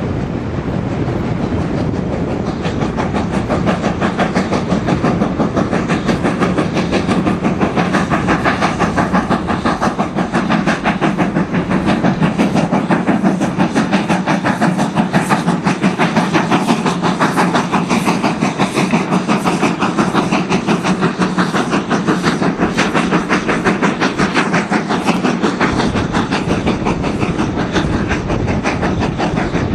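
BR Standard Class 4MT 4-6-0 steam locomotive No. 75014 working hard with a passenger train, its exhaust beating in a rapid, steady rhythm. The beats are loudest in the middle as the engine passes close by.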